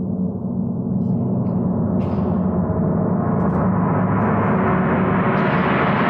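A large Wuhan tam-tam played with a soft mallet, its shimmering ring swelling steadily louder and brighter.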